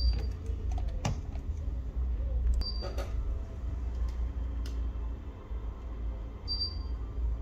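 Light clicks and taps from handling a smartphone and small repair tools, about four separate clicks, with three short high-pitched tones spread through and a steady low rumble underneath.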